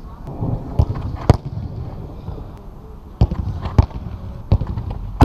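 A series of sharp thuds, about six in five seconds, from footballs being kicked at goal during a warm-up, some striking the goal frame and net the camera is fixed to, over steady background noise.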